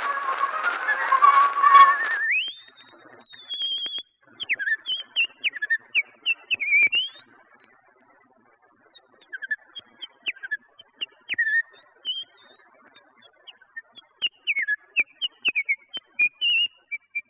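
Early phonograph recording of a woman whistling: after the end of a parlor orchestra piece about two seconds in, she holds a long note that slides up high, then whistles short sliding notes and trills with pauses between phrases. The clicks and crackle of the old recording run underneath.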